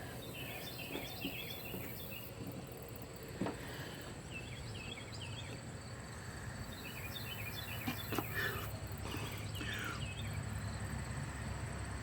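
Quiet outdoor background: small birds chirping in short repeated phrases, with a low steady hum and a few faint knocks, one about a third of the way in and another about two-thirds in.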